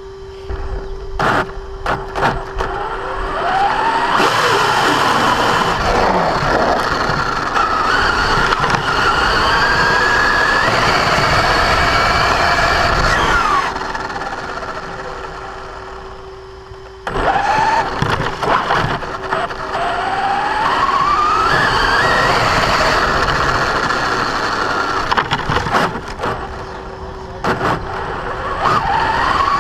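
Battery-powered 1/10 RC monster truck driving hard, its electric motor whining up in pitch as it accelerates, along with the grinding from the drivetrain gears that comes only under acceleration and that resetting the pinion-to-spur gear mesh has not cured. There are two long runs, one from about four seconds in that dies away near the middle, and another starting again a few seconds later.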